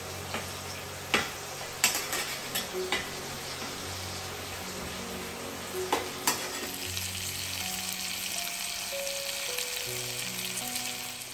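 Eggs, sausages and ham sizzling as they fry in a small metal pan, with a few sharp clicks of a utensil against the pan in the first three seconds and again about six seconds in. The sizzle grows brighter after the clicks at about six seconds.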